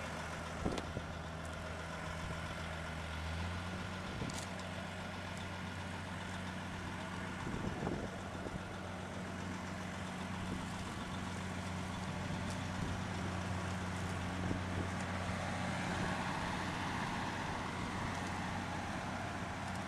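John Deere tractor diesel engine idling steadily, a low even hum whose pitch shifts slightly about three and a half seconds in.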